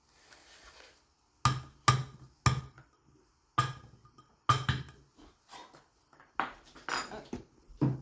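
A metal spoon knocking repeatedly against a plastic blender cup and a paper cup while scooping soft ice cream: about ten sharp, uneven knocks with a short ring.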